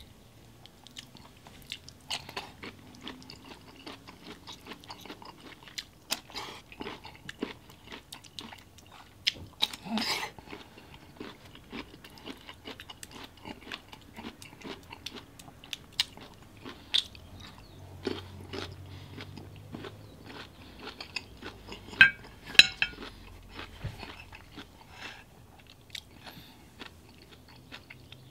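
A person chewing and crunching boiled bamboo shoot dipped in sauce, with many short sharp crunches and mouth clicks scattered throughout.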